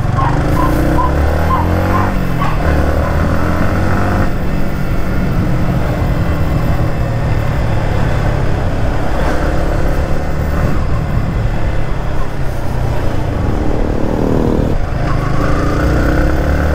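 Yamaha MT-15's 155 cc single-cylinder engine running steadily under way in traffic. Its pitch rises and falls in the first few seconds and again near the end as the bike speeds up and slows.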